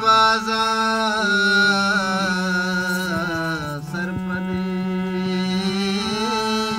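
A man singing a slow, wavering melody over the steady drone of a hand-pumped harmonium, with light dholak drum strokes underneath.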